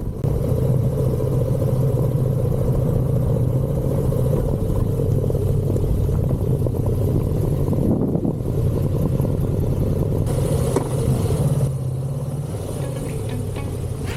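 Adventure motorcycle engine running while riding, a steady hum with small changes in revs. It comes in abruptly just after the start.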